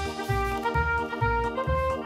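Background music with a steady bass beat, about two beats a second, under long held melody notes.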